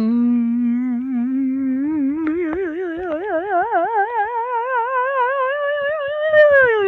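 A single long, unbroken tone with many overtones, humming-like. It starts low and rises slowly in pitch while a wobbling vibrato grows wider, then slides down about six seconds in and settles on a steady lower note.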